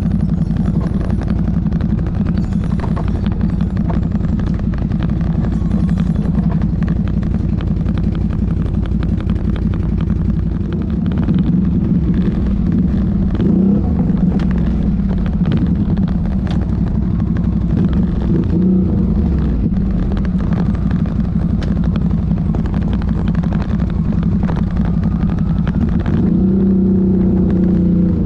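ATV engine running steadily under way, its pitch rising with throttle about 13 seconds in, again near 19 seconds and near the end, with rattling clicks over it.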